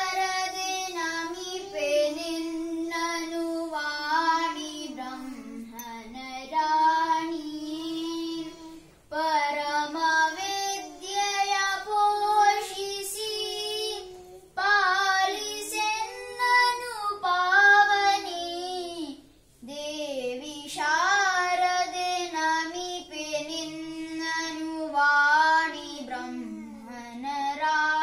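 A child singing a devotional hymn to the goddess Sharada in one clear voice, in long melodic phrases with brief breaks for breath.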